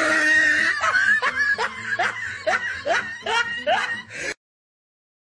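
A person laughing in a quick run of short rising laughs, about three a second, that cuts off abruptly about four seconds in.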